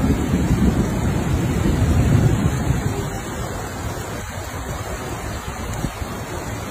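Floodwater rushing fast through a street, with wind buffeting the microphone; the noise eases a little about three seconds in.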